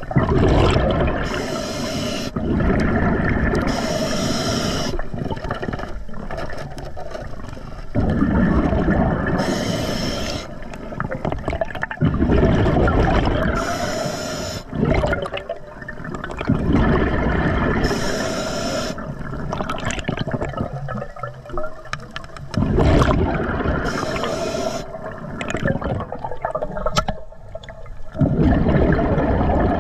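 Scuba diver breathing through an Atomic regulator underwater: each breath in is a short hiss from the regulator, each breath out a longer, loud burble of exhaust bubbles, about six breaths in a slow, even rhythm.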